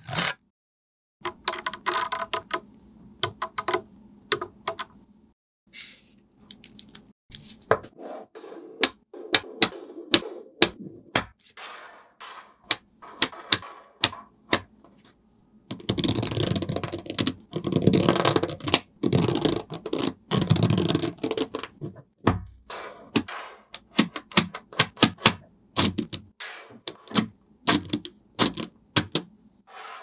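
Small magnetic steel balls clicking and snapping together as they are pressed into place, in quick irregular taps. About halfway through, a long strand of balls rattles down into a row as a dense run of clicks lasting several seconds.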